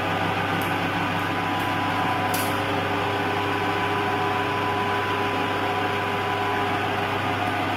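Steady hum of machine-shop machinery running, electric motor tones over a constant drone, with a faint click about two seconds in.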